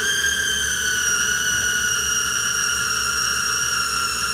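Electric food processor switched on and running with a steady high whine, puréeing cooked white beans, oil and tahini into a dip.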